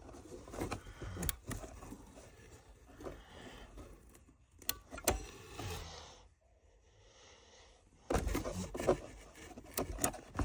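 Hard objects being handled: scattered clicks, knocks and scrapes, with about two seconds of silence a little past the middle.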